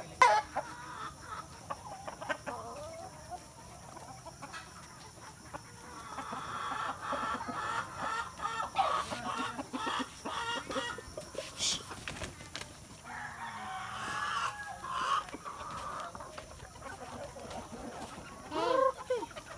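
Free-range chickens clucking around a feeder, the clucking getting busier from about six seconds in, with a single sharp knock just at the start.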